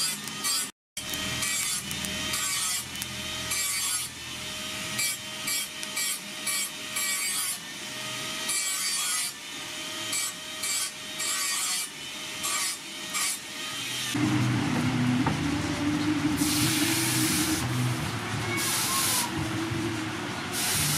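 Rhythmic rasping and scraping strokes at a charcoal forge while an axe head heats. About two-thirds of the way through, the hot steel axe head is quenched in a water trough: the water bubbles and hisses, with two strong bursts of hissing.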